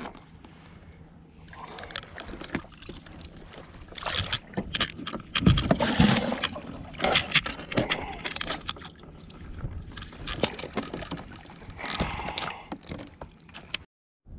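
Irregular knocks, taps and rustling of gear being handled on a plastic kayak, heaviest in the middle of the stretch, cutting off suddenly near the end.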